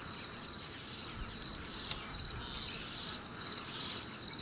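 Insects singing in the mangroves: one steady, high-pitched buzz with a slightly lower trill pulsing several times a second.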